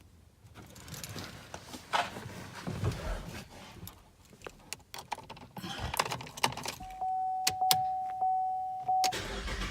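Keys jangling, with small clicks and rustling from handling in the car, as the display fuse is pushed back in and the key readied. About seven seconds in, a steady electronic tone from the car sounds for about two seconds, with clicks over it.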